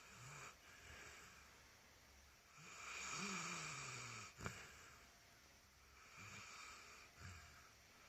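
Snoring at a low level: four snoring breaths at uneven gaps. The longest and loudest comes about three seconds in, its pitch sliding downward, and is followed by a single short click.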